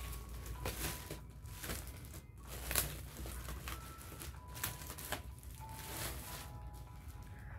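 Clear plastic wrapping crinkling and rustling in irregular bursts as it is handled and pulled off a new laptop. The loudest rustle comes about three seconds in.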